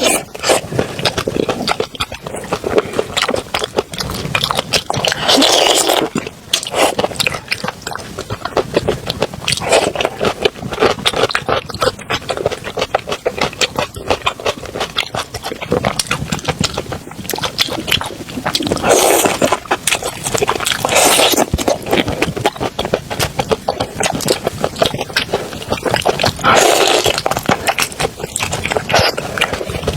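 Close-miked eating sounds: a person chewing and slurping spicy seafood, with wet crackling clicks and several louder slurps or crunches a few seconds apart.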